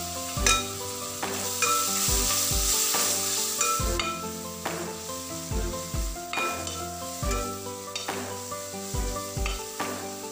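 Chopped onions and curry leaves sizzling in hot coconut oil in a metal pot while a steel spatula stirs them. Background music with a steady beat plays over the frying.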